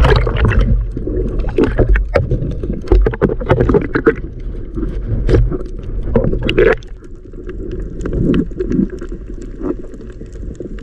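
Underwater sound recorded through the waterproof housing of a GoPro held below the sea surface: muffled low water rumble and sloshing with many scattered clicks and crackles, louder for the first seven seconds or so and then quieter.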